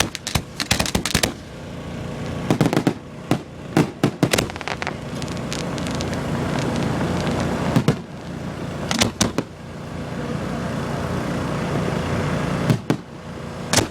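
Aerial fireworks bursting: clusters of sharp bangs and crackles come in several volleys a few seconds apart, with a steady rushing noise that builds between them.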